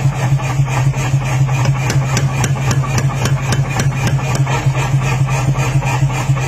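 Mechanical power hammer running with a steady motor hum, its ram striking red-hot knife steel on the die in an even rhythm, a little over twice a second.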